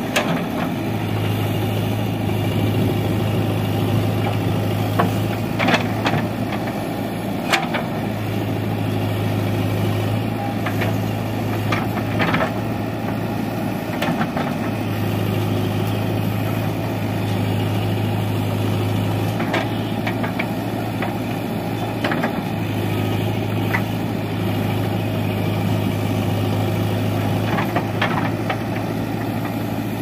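JCB 3DX backhoe loader's diesel engine running steadily while the backhoe works. It has a low steady hum that breaks off briefly a few times, and occasional clanks and knocks as the bucket works into a debris pile.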